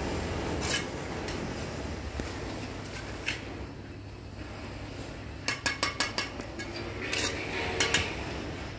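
Fired clay bricks clinking and knocking against one another as they are lifted off a stack, in single clinks, then a quick run of six or seven about halfway through, then two louder clacks near the end.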